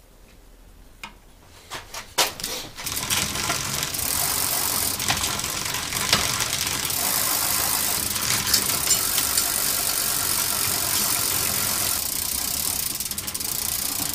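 A bicycle's drivetrain spinning in a repair stand: the rear wheel turns while the chain runs over the sprockets and rear derailleur with a steady whir and scattered ratchet-like clicks. It starts about three seconds in, after a few knocks, and stops just before the end.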